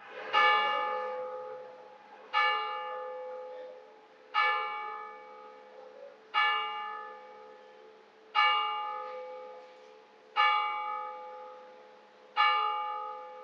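A single bell tolling, struck seven times at an even pace of about one stroke every two seconds, each stroke ringing out at the same pitch and fading before the next.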